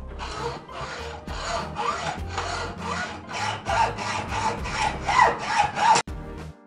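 Hand saw cutting through a small-diameter brass rod held in a vise, with even back-and-forth strokes at about three a second. The sawing stops suddenly about six seconds in as the piece parts off.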